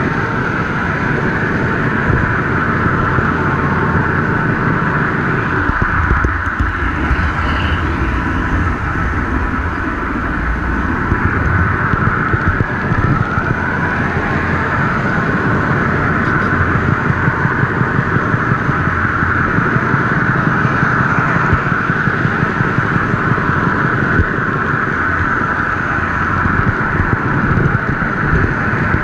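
Model train running along its track, picked up by a camera riding on the train: a steady motor whine over the rumble of wheels on rail. Near the end, quick regular clicks over rail joints join in.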